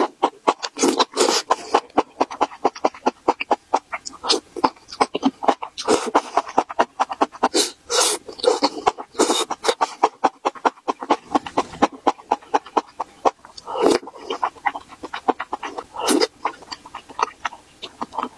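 Close-miked eating: wet mouth noises as strands of enoki mushroom are slurped and saucy rice cakes are chewed, a rapid run of smacks and clicks with a few longer, louder slurps.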